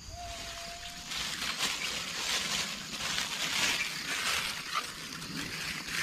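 Rustling of grass and leaves as someone pushes through dense field vegetation, an uneven hiss that swells and fades. A thin steady whistling tone sounds for about the first second.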